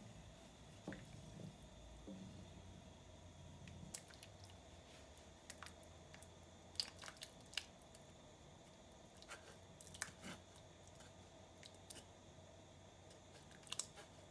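Faint wet squishing of tomato sauce being stirred in a stainless steel pan with a wooden spatula, then scattered light clicks and taps as food is tipped into the sauce from a metal mesh strainer.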